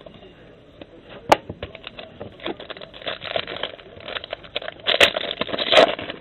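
Crinkling and rustling of a foil trading-card pack and the cards being handled, with a sharp click about a second in and louder crinkling near the end.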